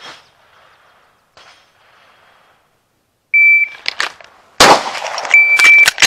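Shot-timer start beep, then a few sharp clicks as a pistol is drawn from its holster and one loud gunshot with a ringing tail about a second later. A second, longer timer beep (the two-second par signal) sounds about two seconds after the first, during the reload, with more clicks around it, before the second shot is fired.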